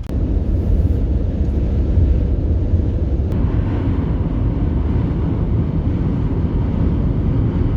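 Steady road and wind noise of a moving car, with wind buffeting the microphone; the noise grows brighter and hissier about three seconds in.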